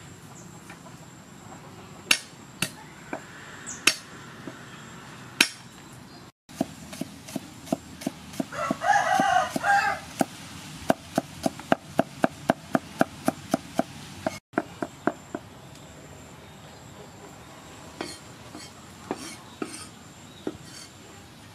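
Cleaver chopping garlic cloves on a round wooden chopping board: a few scattered knocks, then a steady run of chops about two or three a second. A rooster crows once in the middle, for about a second and a half.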